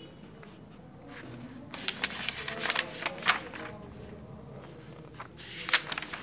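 Paper pages of a thick textbook being turned by hand: a run of crackly rustles from about two to three and a half seconds in, and a sharper page flap near the end.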